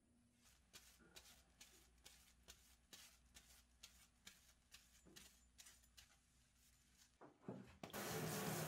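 A cloth rubbed along the steel blade of an usuba knife in quick, even wiping strokes, about three to four a second. Near the end a hand-held shower sprayer starts spraying water over the blade, a steady hiss much louder than the wiping.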